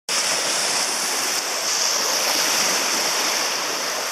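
Small lake waves washing steadily, heard as a constant hiss with no distinct single splashes.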